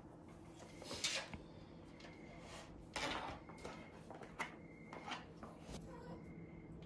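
Scattered soft rustles and light knocks, loudest about one and three seconds in, as a miniature pinscher in a plastic cone collar scrambles off a lap and moves among cardboard boxes.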